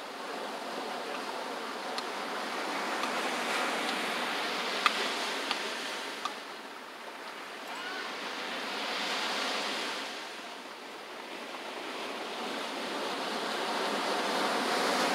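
Ocean surf washing in on a sandy cove, swelling and easing with the sets of waves. A few short sharp clicks stand out, the sharpest about five seconds in.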